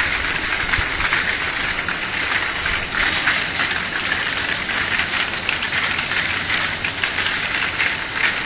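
External vial washing machine for 50 ml vials running, with a loud, steady hiss.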